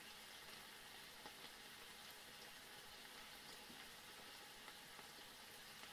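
Razor clam meat simmering faintly in its own juices in a frying pan, a steady soft hiss.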